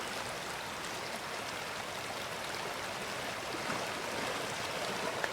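Creek water running steadily, an even rushing babble with no single sounds standing out.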